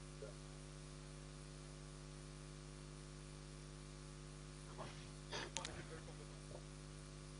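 Steady low electrical mains hum in the sound system, with a few faint brief noises about five seconds in.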